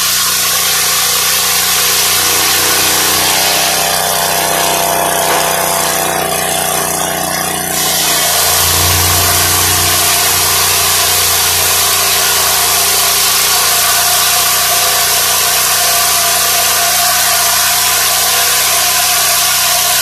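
Engine-driven circular saw blade of a homemade Lucas Mill-style portable sawmill running at speed and ripping a board from a log. About eight seconds in it grows louder and fuller as the blade cuts into the wood, then runs steadily.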